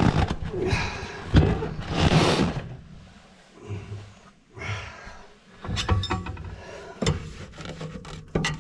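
Scraping and knocking of the stove's grate and firebrick being shifted and worked by hand inside the firebox: rough scraping in the first couple of seconds, then scattered sharp clicks and knocks from about six seconds in.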